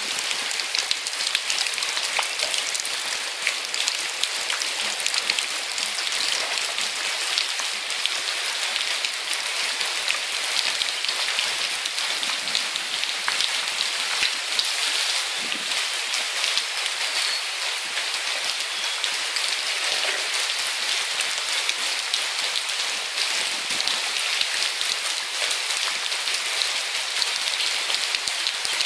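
Heavy rain falling steadily on flooded pavement and leafy trees, a dense, even hiss of drops with no let-up.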